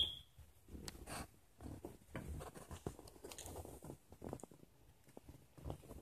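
A cat and kitten play-fighting on carpet make faint, irregular scuffling, with soft taps and rustles of paws and fur. A short, sharp, high-pitched squeak sounds right at the start.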